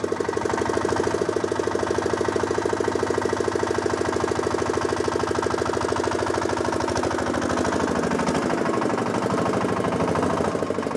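Small rope-started engine of a homemade mini tractor running steadily under way, with an even, rapid chugging of firing pulses.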